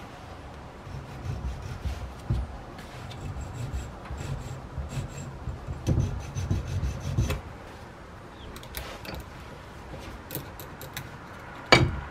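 Needle file scraping in irregular strokes across the slot of a small slotted saw-handle screw clamped in a metal bench vise, for about six seconds. It is followed by a few light metallic clicks and one sharp click near the end.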